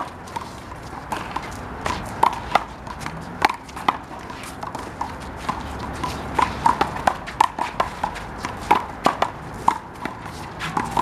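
A rubber handball being struck by hand and bouncing off the wall and pavement: a string of sharp, irregularly spaced smacks, some with a short hollow ring.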